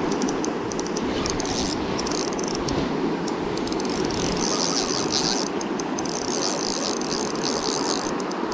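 Steady rush of a shallow river riffle close to the microphone. Over it is a fast, high rattle that comes and goes.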